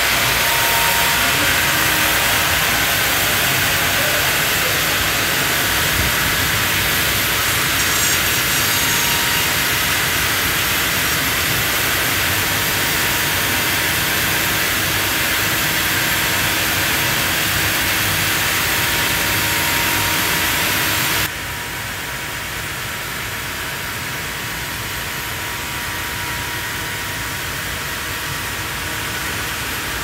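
Sawmill band saw running steadily as it cuts lengthwise through a huge cedar log, a loud, even, hissing machine noise. About two-thirds of the way through it drops abruptly to a quieter steady machine noise.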